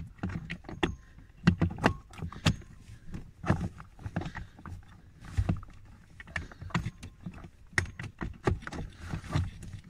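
Irregular plastic clicks and knocks as a heater blower final stage resistor is wiggled and pushed around in its mounting hole behind the footwell trim, trying to seat it by feel.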